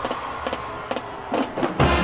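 Marching band music: a few separate drum strokes, then the full band comes in near the end with loud held chords.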